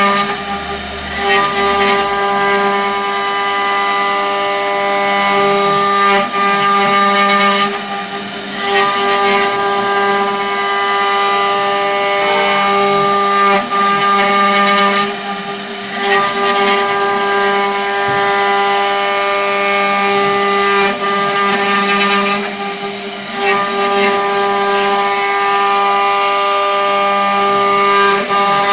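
Eight-spindle 4-axis CNC wood router carving wooden workpieces: a steady spindle whine over the rasp of router bits cutting wood. The sound dips briefly every seven seconds or so.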